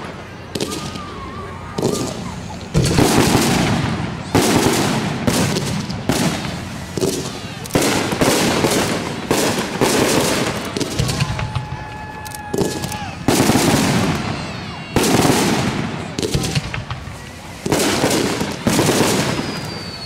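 Aerial fireworks shells bursting one after another, a sharp boom every second or two, each dying away before the next. A few thin whistling tones sound briefly near the start and again around the middle.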